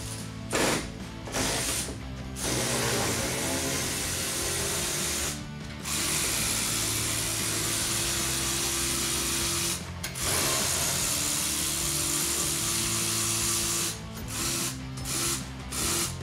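Cordless electric ratchet running as it backs out the driveshaft bolts. It starts with a few short bursts, then runs in three long spells of about three to four seconds each with brief stops between, and ends with short bursts again.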